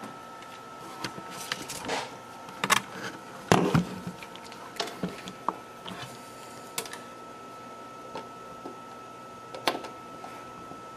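Handling noises on a workbench as multimeter test leads and gear are moved: scattered clicks and knocks, the heaviest about three and a half seconds in, over a faint steady high-pitched whine.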